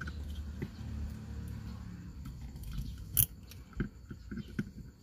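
Plastic suction-cup dash-cam mount handled and worked onto a rear-view mirror stem: rubbing and fumbling with scattered plastic clicks, the loudest a sharp click about three seconds in.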